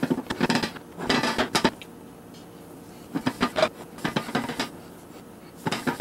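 Glass lid clattering onto a metal cooking pot, then the pot shaken on a stove grate with loose popcorn kernels inside. The metal and glass knocks come in bursts: a dense clatter at first, then sharp knocks about halfway through and again near the end.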